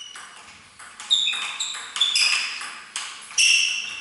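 Table tennis ball being hit back and forth, clicking sharply off bats and table several times about half a second apart, the loudest hits ringing briefly.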